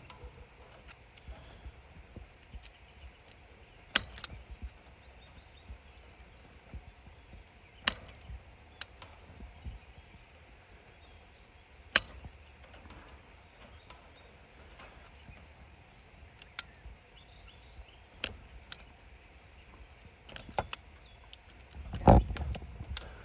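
Scattered sharp clicks and light taps from handling and fitting low-voltage thermostat wire at a heat pump, a few seconds apart, with a louder knock near the end.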